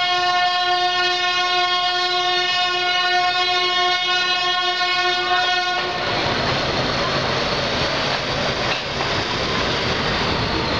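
Locomotive horn sounding one long steady blast for about six seconds, then cutting off. After it comes the noise of the moving train running along the track, with a few wheel clacks.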